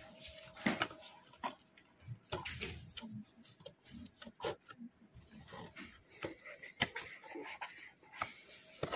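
Handling noise from a printed cardboard product box being turned and touched by hand: irregular clicks, taps and knocks scattered throughout.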